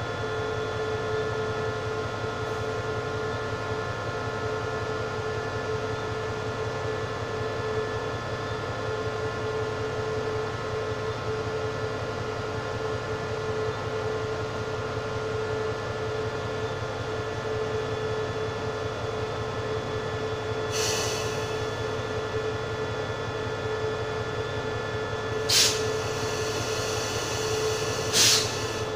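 SRT CDA5B1 diesel-electric locomotive idling at a standstill: a steady engine hum with a constant whine. Three short hisses break in during the second half, the last two the loudest.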